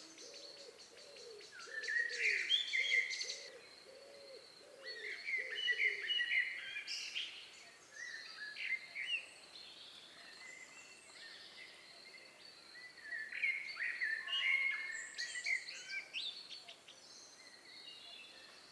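Outdoor ambience of songbirds: several bursts of chirping, warbling song, with a low repeated hooting call in the first few seconds.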